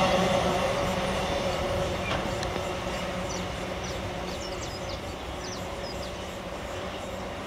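Empty iron-ore freight wagons rolling away on the track: a rumble with steady metallic ringing from the wheels, fading as the last wagons recede. A few short high chirps come in the second half.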